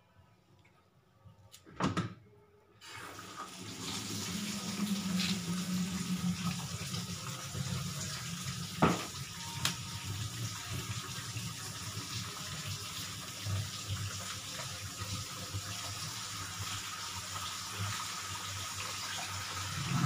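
A sharp knock about two seconds in, then water runs steadily from a tap into the tub of a twin-tub washing machine as it fills. The machine is being filled to test a newly fitted drain seal for leaks.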